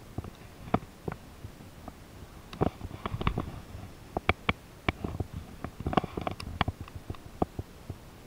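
Irregular sharp clicks and knocks, thickest in the middle, from a spinning rod and reel being handled as a hard lure is cast and reeled in, over a faint low rumble of handling noise.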